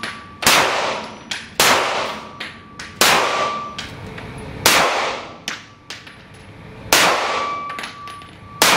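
Heckler & Koch P30L pistol fired six times at uneven spacing, roughly one to two seconds apart. Each shot is a sharp crack with a reverberating tail in the small indoor range, and a faint metallic ring follows some of the shots.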